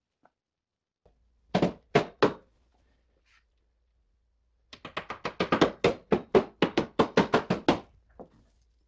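Hammer tapping small trim clips down into a Triumph Spitfire's body: three taps, a pause, then a quick even run of about twenty taps, and a last single tap near the end.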